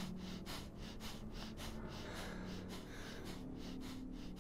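Quiet film soundtrack: a low steady hum under a fast, even pulse of breathy hiss, about five a second.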